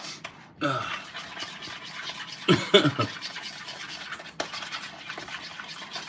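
Glaze sauce being stirred in a bowl: a steady scraping of the utensil with light clicks against the bowl's side. A man's voice breaks in briefly twice.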